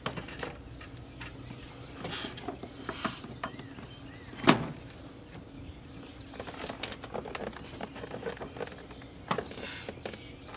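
Plastic interior door panel of a Land Rover Discovery 2 being pulled off the door: scattered clicks, creaks and rattles, with one sharp knock about four and a half seconds in and a run of quick clicks in the second half. A faint steady low hum lies underneath.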